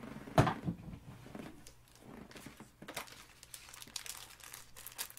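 Hands handling paper and cardboard packaging, with irregular crinkling rustles and a sharp knock about half a second in.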